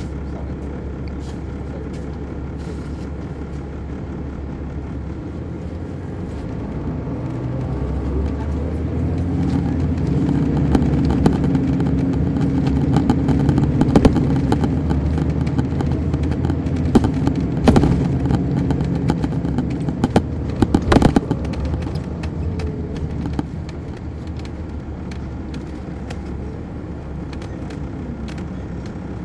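Caterpillar C13 diesel of an MCI D4500CL coach, heard from on board: the engine runs steadily, then rises in pitch and level as the bus pulls away about a quarter of the way in. It is loudest through the middle, with several sharp knocks and rattles, then eases off and falls in pitch near the end.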